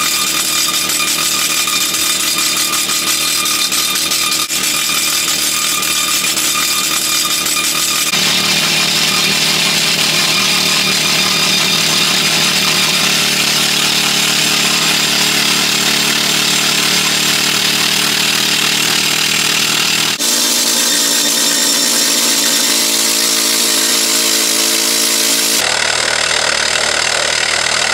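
Shenli YT27 air-leg pneumatic rock drill hammering its drill steel into granite, fed with 0.5 MPa compressed air: a loud, unbroken clatter. Its tone shifts abruptly a few times.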